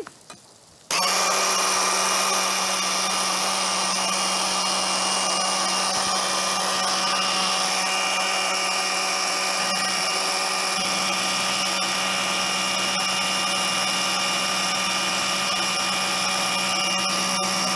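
Tefal Quickchef stick blender in its chopper-bowl attachment, switching on about a second in and running at a steady pitch as it purées a bean paste.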